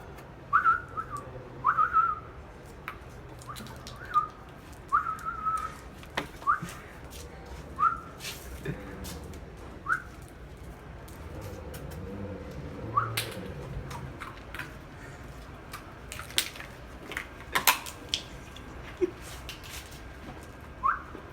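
A pitbull biting a walnut apart: sharp cracks and crunches of the shell in its jaws, loudest in the second half. Over the first half come short, high, whistle-like calls, about one a second, then fewer.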